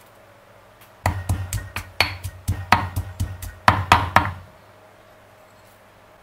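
Granite pestle pounding herbs and seasonings in a granite mortar: a quick run of sharp stone-on-stone knocks, about four to five a second, starting about a second in and stopping around four and a half seconds in.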